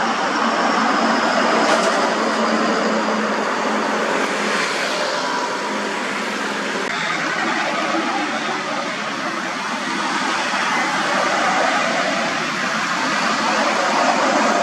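Busy road traffic: container trucks, lorries and motorbikes passing close by, a steady mix of engine and tyre noise without any single standout event.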